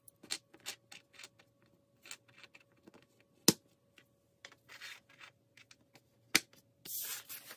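Paper instruction sheets being handled, rustling and crackling in short bursts, with a longer rustle near the end. Two sharp knocks stand out, about three and a half seconds in and again about six and a half seconds in.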